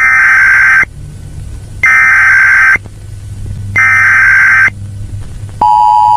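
Emergency Alert System-style alert tones: three loud electronic data bursts about a second long and a second apart, then a steady two-tone attention signal that starts near the end.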